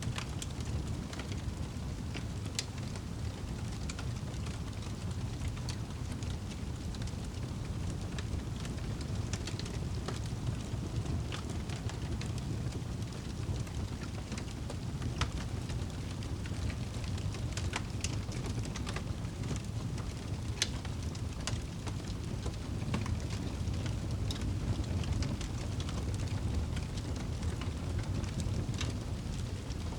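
Campfire burning: a steady low rumble with scattered sharp crackles and pops from the burning wood.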